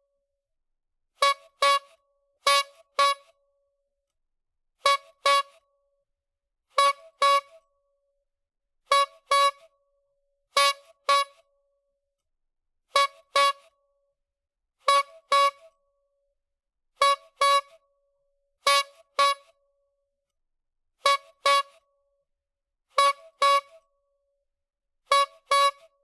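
Clown horn honking in quick double honks, a pair about every two seconds. Each honk is short and holds one steady pitch.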